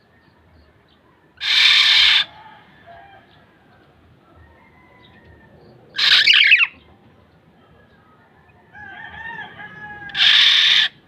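Black-naped oriole giving three loud, harsh, nasal calls, each just under a second long and about four seconds apart. Softer whistled notes come shortly before the last call.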